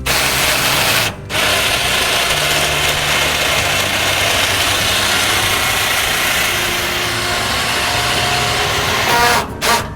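Loud, steady mechanical rushing noise, broken briefly about a second in and stopping just before the end.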